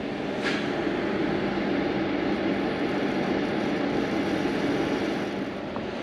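Inverter welder's cooling fan running with a steady whirring drone and a faint hum while the welder feeds current through the connector test board, with a light click about half a second in.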